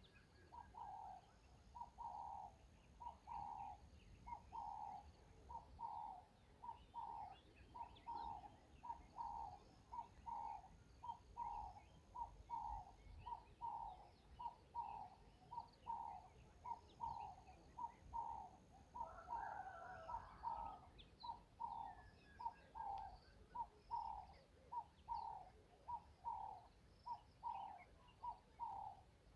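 A bird calling in the background: one short mid-pitched note repeated over and over at an even pace, about three notes every two seconds.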